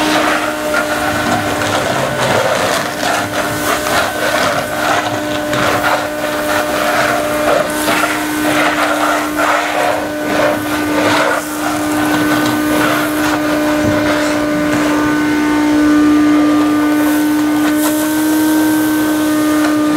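Wet/dry shop vacuum running with a steady motor whine while its hose nozzle sucks up sand from a stage floor; sand and grit rattle through the hose in quick crackles over the first half, then the whine runs on more evenly.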